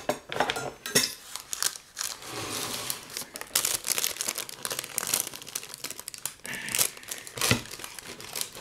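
Baking paper crinkling and rustling in irregular crackles as it is gripped and folded back from a cake being cut with a knife, with a sharper crackle about a second in and another near the end.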